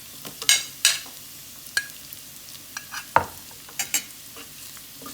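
Sliced onion frying in hot ghee with cumin seeds and garlic, a steady sizzle, while it is stirred in the pan with several sharp knocks and scrapes of the utensil against the pan.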